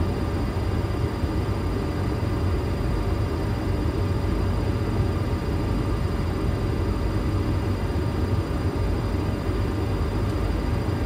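Steady cockpit noise of a Boeing 737-800 on final approach, with the landing gear down and flaps at 30: a low, even rush of airflow and engine noise with a few faint steady tones above it.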